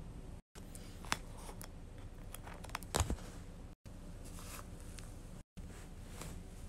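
Light handling noises on a wooden floor: a tap about a second in and a sharper double knock around three seconds, over a low steady room hum. The sound cuts out completely three times for a split second.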